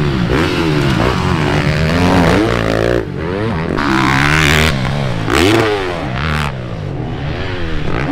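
Motocross bike engines revving hard, their pitch climbing and falling with each burst of throttle as the bikes ride the jumps. More than one bike is heard. The sound changes abruptly about three seconds in, and a few short hissing bursts follow.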